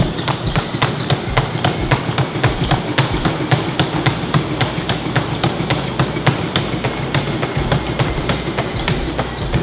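Rapid footfalls pounding on the belt of a Matrix treadmill driven by foot power with its motor off, about five steps a second, over the low rumble of the moving belt.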